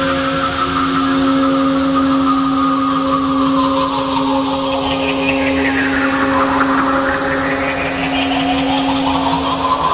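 Music: a steady drone holding one low note and its octave, under a hissing, noisy sweep that falls in pitch and then rises again in the second half.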